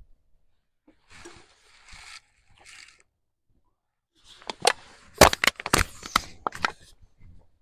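Gear being handled: a few soft rustles, then about halfway through a quick run of sharp knocks and clatter lasting a couple of seconds.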